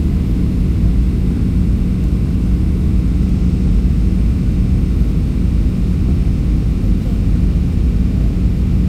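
Airliner cabin noise: a steady, loud low rumble of engines and airflow with a constant low hum.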